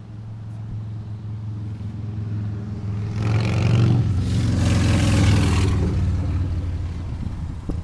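Ford 6.2-liter gasoline V8 idling with a steady low hum. About three seconds in, a louder rush of noise swells twice over roughly three seconds, then fades back to the idle.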